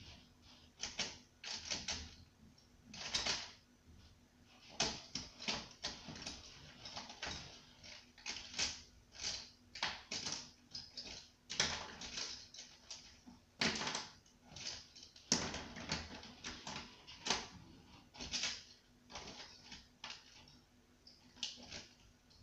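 Coloured pencils and pens clicking and rattling against each other as a hand rummages through a fabric pencil case: an irregular string of short clicks and rustles.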